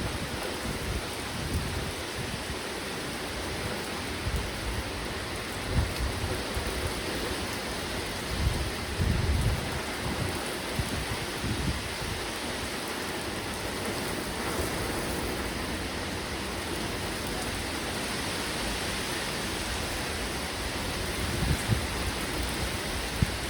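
Heavy downpour of rain falling steadily. Short low rumbles come through now and then, most strongly about nine seconds in and again near the end.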